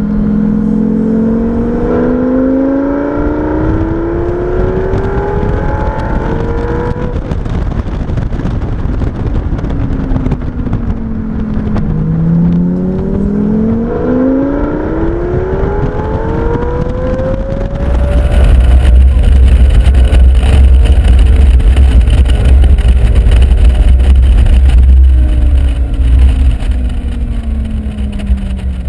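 Lamborghini Gallardo Spyder's V10 engine accelerating hard, its pitch climbing for several seconds. It eases off, then climbs again. From about two-thirds of the way in, a heavy wind rumble on the microphone covers the engine, which slowly winds down.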